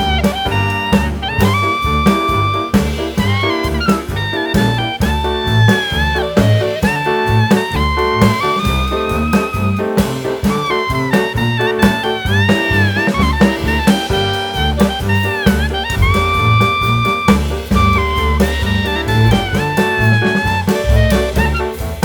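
Background jazz music: a saxophone-like lead melody over a steady beat and bass.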